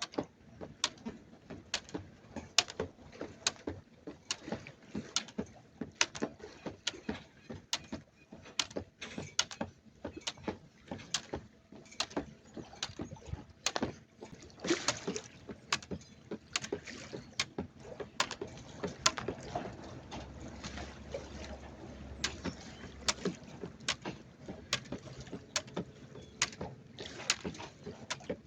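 Jump rope slapping the ground in a quick, slightly uneven rhythm of about two to three slaps a second, over a steady sound of water.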